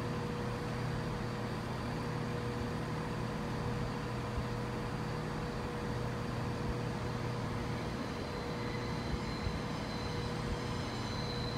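Steady low drone of a diesel multiple unit's underfloor engines, with a constant hum tone over it, as a CrossCountry Class 170 Turbostar approaches slowly.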